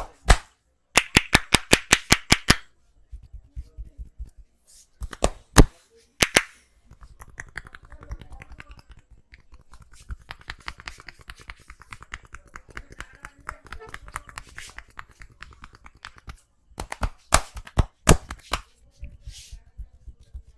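A barber's hands clapping and slapping on a client's head during a head massage. First comes a quick run of about a dozen sharp claps, then a few single loud claps, then a long stretch of softer rapid tapping, and more sharp claps near the end.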